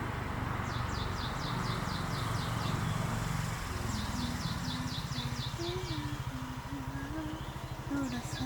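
A songbird sings three quick trills of high, downward-sliding notes, about ten notes each, over a steady rushing hum. About halfway through, a low engine drone with a wavering pitch joins in.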